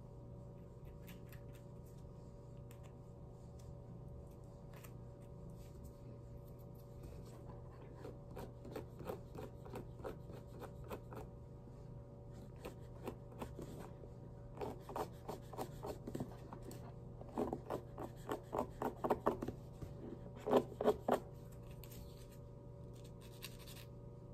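Nail file rasping across freshly glued-on false nails, in short runs of quick back-and-forth strokes, about four a second, the later runs louder.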